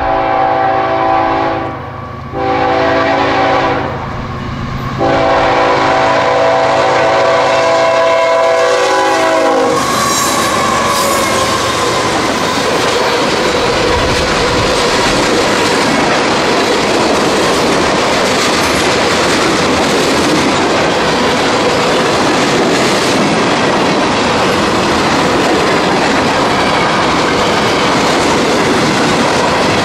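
Norfolk Southern freight train's multi-chime air horn sounding a chord in blasts: a break about two seconds in, a short blast, then a long blast that ends about ten seconds in. The train then passes close by with a steady rumble and wheel clatter over the rail joints.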